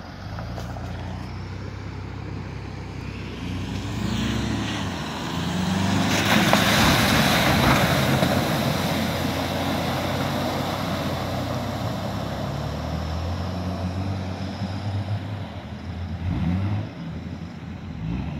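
4x4 SUV engines revving as they drive through deep mud and water, the pitch rising and falling. A loud rush of splashing water and mud about six seconds in is the loudest part.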